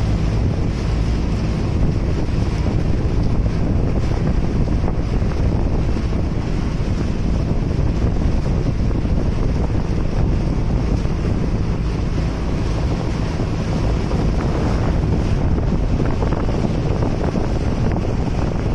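Bangka outrigger boat under way: a steady engine drone under the rush of water along the hull, with wind buffeting the microphone.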